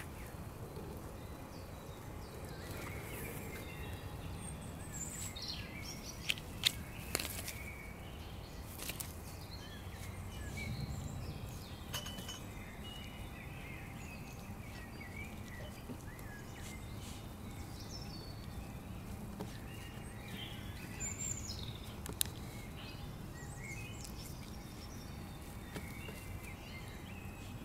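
Outdoor background noise: a low steady rumble with scattered small bird chirps, and a few sharp clicks, three close together about a quarter of the way in and one more later.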